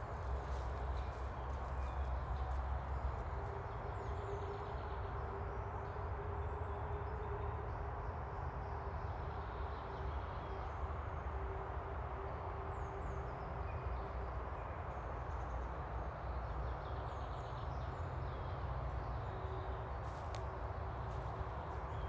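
Forest ambience: faint, scattered birds chirping over a steady low rumble and hiss, with footsteps along a woodland path. A faint steady hum sets in about four seconds in, and a few sharp clicks come near the end.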